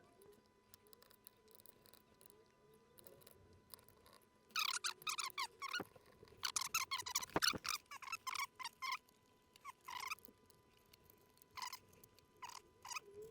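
Faint squeaking and scratching in short, irregular bursts as small screws are turned out of a plastic toy casing, starting about four seconds in, with a couple of light clicks.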